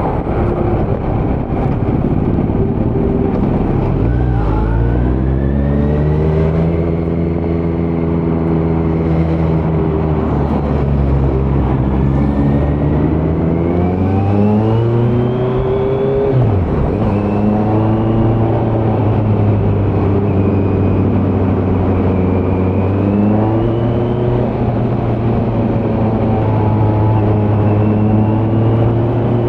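2018 Kawasaki Z900's 948 cc inline-four running through a Leo Vince slip-on muffler with no dB killer, under way on the road. The revs climb, hold, then climb again and drop sharply about halfway through, before rising slowly once more.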